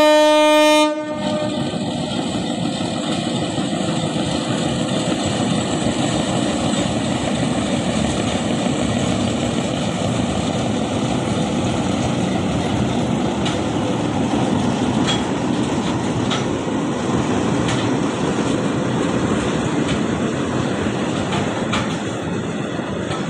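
Diesel locomotive horn sounding and cutting off about a second in. Then a freight train of hopper wagons rolls past in a steady rumble and clatter of steel wheels on rail, with a few sharp clicks, easing slightly near the end.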